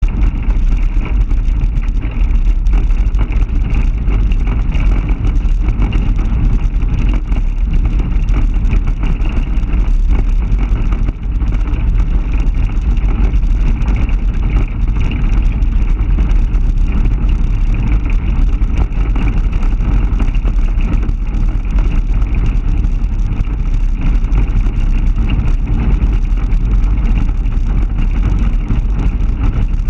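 Steady, loud rumble of a pickup truck on the move, heard from its open bed: road and engine noise mixed with wind buffeting the microphone.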